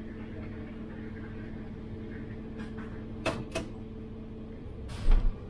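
City bus cab noise: a steady mechanical hum that stops a little before the end. Two sharp clicks come about three seconds in, and a louder thump follows near the end.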